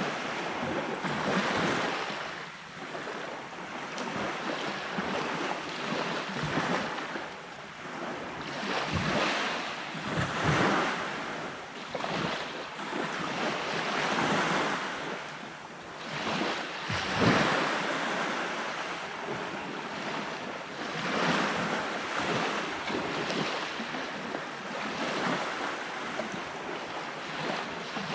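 Surf breaking and washing onto a beach, swelling and easing every few seconds, with wind buffeting the microphone now and then.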